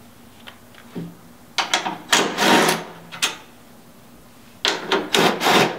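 Cordless power driver with a 12 mm socket running in two spells of about a second and a half each, backing bolts out of a snow bike mount plate. A couple of light clicks of the socket going onto the bolt heads come before the first spell.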